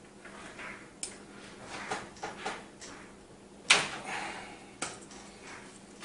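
Hands working SATA power cables and their plastic connectors at the drive bays of a PC case: a string of sharp plastic clicks and knocks with cable rustling between them, the loudest click a little past halfway.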